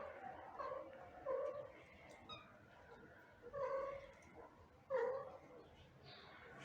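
Cat making a series of short, soft pitched calls, about five of them spaced a second or so apart, the mother-and-kittens sounds of a reunion.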